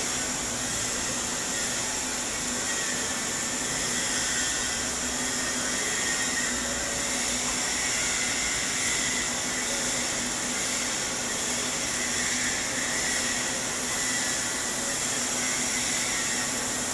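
Stick (shielded metal arc) welding with an E7018 low-hydrogen rod: the arc's steady frying hiss while laying the capping pass on a header, over a steady low hum.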